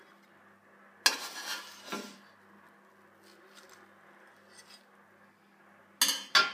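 Metal fork clinking and scraping on a plate: a sharp clink about a second in followed by about a second of scraping, a few faint taps, then two sharp clinks near the end.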